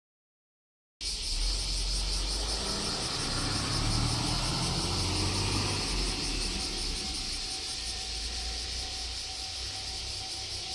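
Cicadas droning in a steady high buzz, with a low engine rumble in the first half that fades away, and a faint steady tone entering about halfway.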